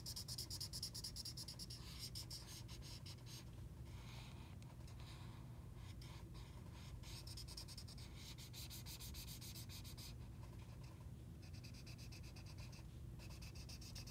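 Faint scratching of a felt-tip marker rubbed back and forth on paper in quick strokes while colouring in, coming in runs with a few short pauses.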